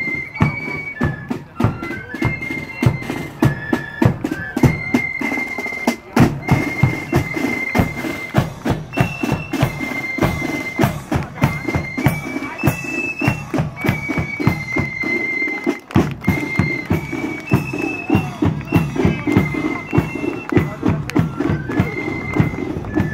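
Marching flute band playing a tune: a high flute melody stepping from note to note over steady drumming with a bass drum.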